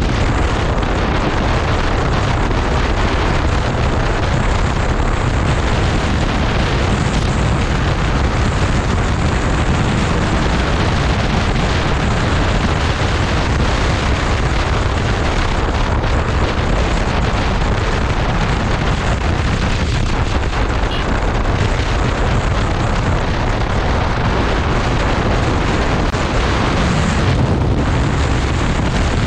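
Loud, steady wind buffeting on the microphone of a moving vehicle, with engine and road noise underneath.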